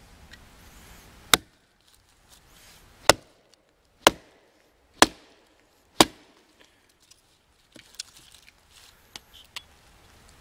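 Hatchet chopping into a stick of wood braced on a log: five sharp strikes, the last four about a second apart, then a few lighter knocks near the end.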